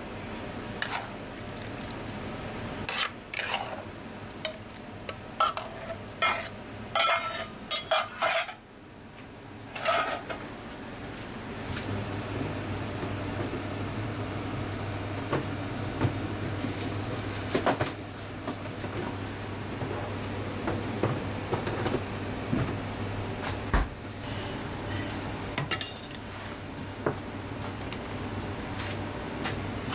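Metal ladle and kitchenware clinking and clattering against pots in a quick series of sharp knocks, then a steady low hum with occasional clinks.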